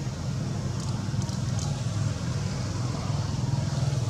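Steady low motor rumble, like a vehicle engine running, with a few faint clicks between one and two seconds in.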